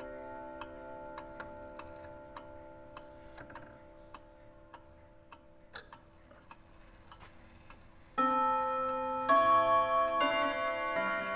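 Junghans W64 pendulum wall clock ticking steadily, a little under two ticks a second, under the fading ring of its gongs. About 8 s in, once the minute hand has been turned to the hour, the strike starts: the hammers hit the gongs about once a second, each blow ringing out as a loud chord.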